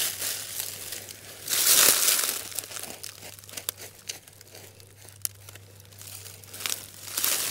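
Dry soil and leaf litter rustling and scraping as it is cleared by hand off a buried gravestone. The sound comes in uneven bursts with a few small clicks.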